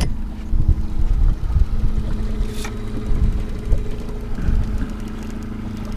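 Boat's outboard motor running steadily at trolling speed, a low even hum, with irregular low rumbles of wind buffeting the microphone.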